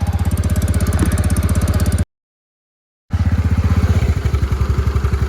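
TVS Ntorq 125 scooter's single-cylinder engine idling with an even tap-tap-tap exhaust beat, its sound now running right after a garage fix. The sound drops out completely for about a second, some two seconds in.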